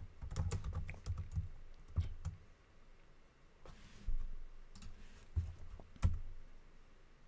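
Computer keyboard keystrokes: a quick run of typing at the start, then a few separate key presses spread over the next several seconds.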